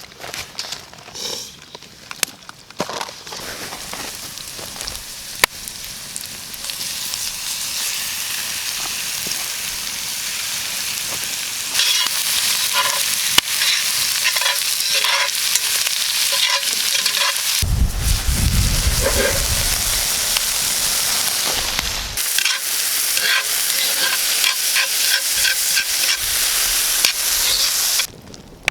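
Steak sizzling in a pan over a campfire: a steady frying hiss that builds up and grows loud, dotted with small pops and crackles, with a brief low rumble about two thirds of the way through.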